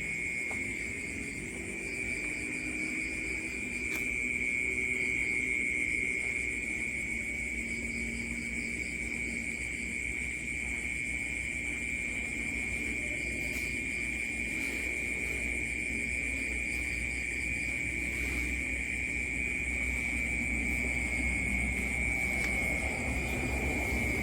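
Night ambience of an unbroken, high insect drone like a chorus of crickets or cicadas, with a faint pulsing chirp above it, over a low rumbling drone.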